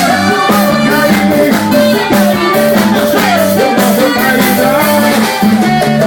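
Live forró band playing an upbeat song with a steady beat.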